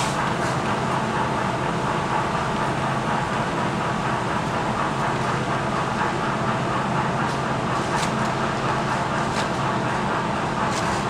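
Model railroad freight cars rolling steadily along the track: an even rolling rumble with a low hum and occasional faint clicks.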